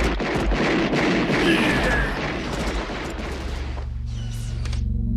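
Movie fight soundtrack: a dense mix of rapid gunshots and impacts over general noise, thinning out after about three seconds. It is followed by a low, sustained musical drone.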